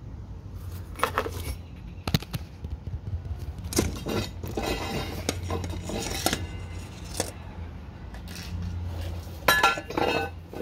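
Irregular metallic clinks and knocks of tools and hardware being handled against the steel frame of a lawn aerator, a few with a short ring, over a faint low steady hum.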